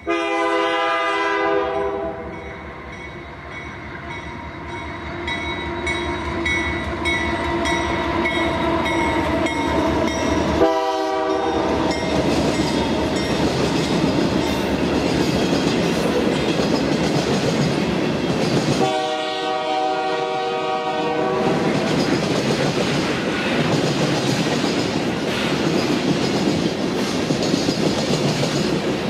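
Canadian Pacific GE AC4400CW locomotive's air horn sounds three times: a blast of about two seconds at the start, a short one about ten seconds in, and a longer one about nineteen seconds in. Under it a freight train passes, its wheels clattering over the rail joints in a steady rumble that builds over the first few seconds.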